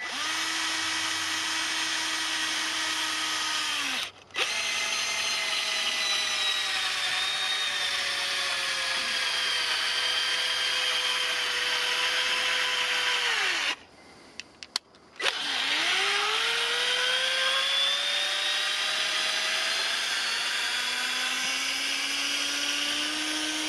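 Cordless drill-driver whining as it drives a long screw into a log, in three runs with short stops about four seconds in and near the middle. During the long runs the pitch sags slowly as the motor slows under the load of the screw biting deeper.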